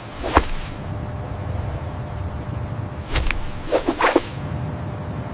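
Cartoon whoosh sound effects of a character speeding down a water slide: one sharp swish just after the start, then a cluster of about three swishes between three and four seconds in, over a steady low rumble.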